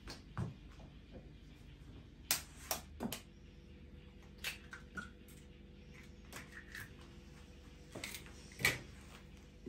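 Kitchen dishes and utensils being handled on a wooden counter: a scattered series of sharp clicks and knocks, the loudest near the end.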